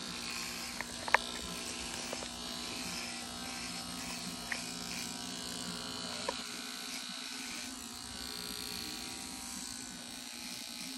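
Electric hair clippers running with a steady buzz during a flattop haircut, with a few sharp clicks, the loudest about a second in.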